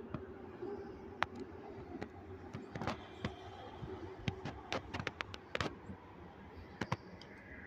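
Dry twigs and brush snapping and crackling underfoot in irregular sharp clicks, bunched in a few flurries, over a faint steady background hum.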